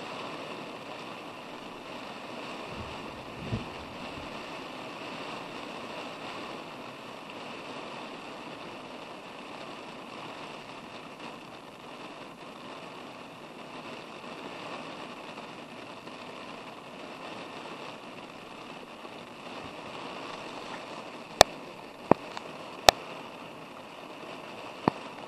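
Heavy rain pouring down steadily in a thunderstorm, with a few sharp clicks near the end.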